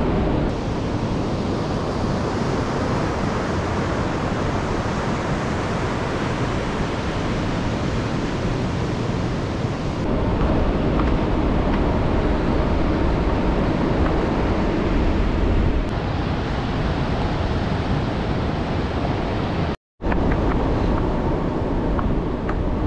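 Wind rushing over the microphone of a camera riding on a moving electric bike, with surf washing behind it. The sound drops out completely for a moment near the end.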